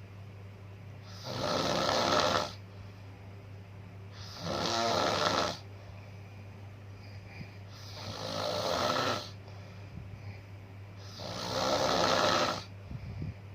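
Slow, regular snoring: four snores, each lasting about a second, roughly every three and a half seconds, over a steady low hum.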